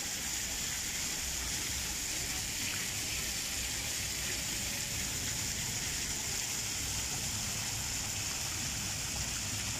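Row of small fountain jets splashing into a pool: a steady hiss of falling water.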